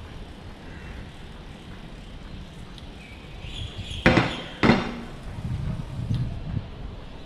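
Two sharp knocks about half a second apart, the loudest sounds here, over a steady low rumble.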